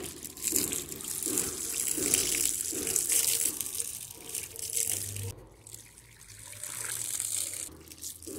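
Water poured from a plastic container splashing over a mountain bike's rear cassette and derailleur, rinsing degreaser off the drivetrain. It pours for about five seconds, stops briefly, then pours again and stops shortly before the end.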